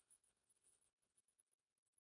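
Near silence: a faint recording hiss.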